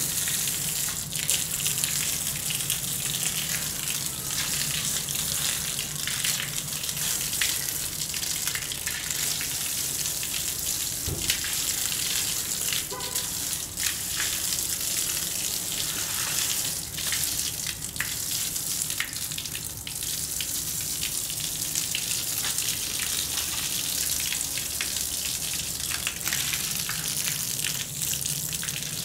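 Water jet from a garden hose spraying against a rough plastered wall and splashing onto wet floor tiles: a steady hiss with constant spatter.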